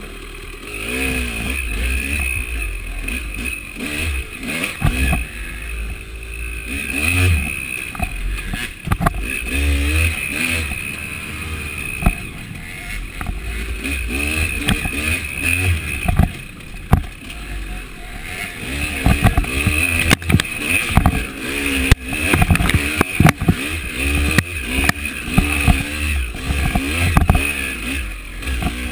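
KTM 300 two-stroke dirt bike engine revving up and down as it is ridden over rough ground, with sharp knocks and clatter from the bike over bumps.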